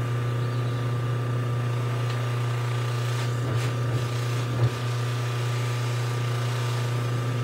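Electric buffer motor running with a steady low hum while an aluminium forged piston crown is pressed against the spinning buffing wheel and polished, with faint brief scuffs of metal on the wheel a few seconds in.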